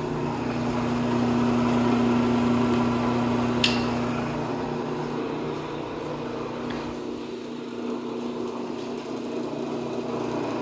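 Ammco 4100 brake lathe running: a steady electric motor and gear-drive hum, with one sharp click about three and a half seconds in.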